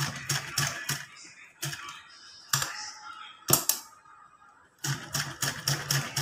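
Vintage sewing machine stitching: the needle mechanism clacks in quick runs of about four stitches a second, slows to a few single stitches in the middle, pauses briefly, then runs fast again near the end.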